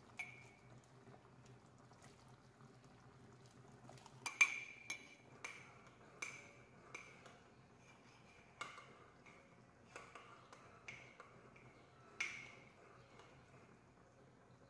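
Metal utensils clinking against dishes, about ten light strikes at uneven intervals, each with a short ringing note. The loudest comes about four and a half seconds in.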